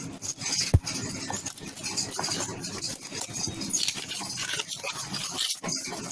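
Rustling and crinkling of a parcel's packaging being handled and opened, with a sharp knock about three-quarters of a second in.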